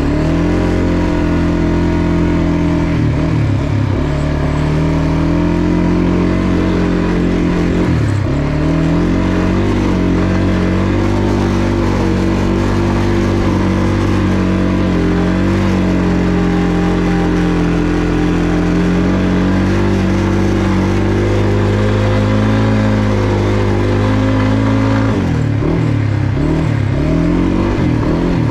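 Kawasaki Brute Force 300 ATV's single-cylinder four-stroke engine running under load as the quad rides through wet slushy snow. The engine pitch dips and comes back up twice in the first several seconds, holds fairly steady through the middle, and wavers up and down near the end.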